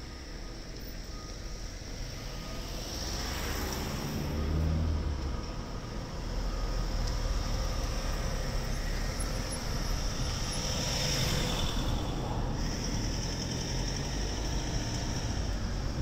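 Street traffic on a harbour road: vehicles driving past, one swelling and fading about four seconds in and another around eleven seconds, over a steady low rumble.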